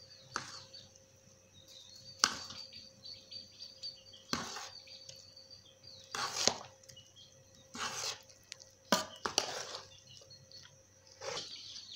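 Metal ladle scraping and knocking against an aluminium cooking pot while mixing cooked biryani rice: about eight separate strokes, a second or two apart.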